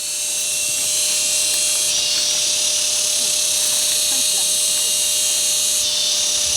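Steady high-pitched insect drone, with abrupt shifts in level about two seconds in and again near the end.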